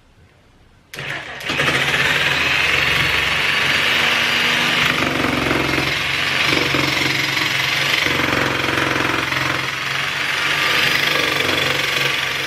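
An electric power tool starts about a second in and runs steadily under load, working on PVC pipe, and stops at the very end.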